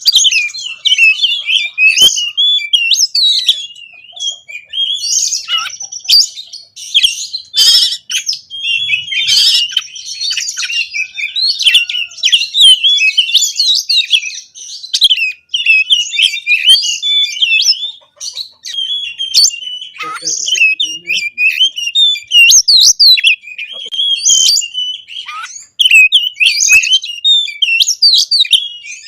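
Oriental magpie-robin (kacer) singing nonstop, a fast, varied stream of sharp whistles, trills and chirps packed with mimicked phrases, in the excited, aggressive full-song style used to provoke other magpie-robins into singing.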